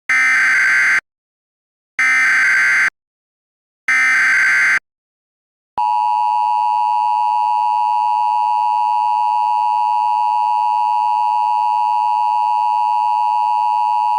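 Emergency Alert System broadcast alert: three short bursts of SAME header data, each about a second long, then from about six seconds in the steady two-tone attention signal.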